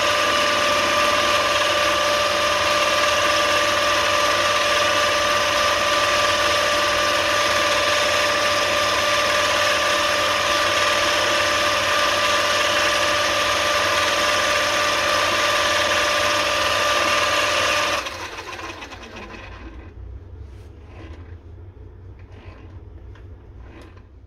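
Mini lathe running steadily with a high gear whine, its DIY power feed driving the carriage. After about eighteen seconds it cuts off and the spindle coasts down with faint clicking.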